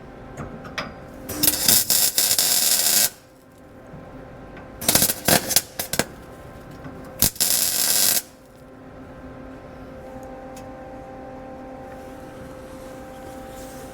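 Welder laying three short tack welds on galvanized EMT conduit braces, three bursts of welding about a second and a half, a second and a half, and a second long, the middle one broken and sputtering. A steady hum runs underneath.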